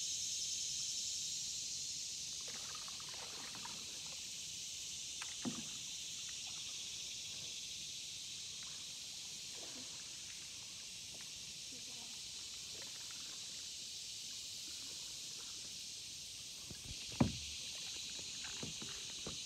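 Steady high-pitched insect chorus droning over the swamp, with a few faint knocks and a louder knock near the end as the phone is handled.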